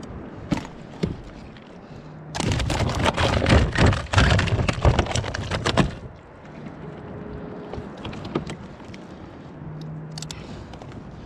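A dense run of loud knocking and clattering on the kayak for about three and a half seconds. A few single knocks come before and after it.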